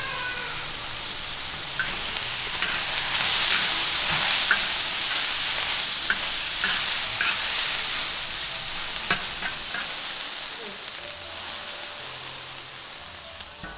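Pork and dried bamboo shoots sizzling in a pan while being stir-fried, with sharp clicks of the spatula against the pan every second or so. The sizzle is loudest a few seconds in and slowly dies down toward the end.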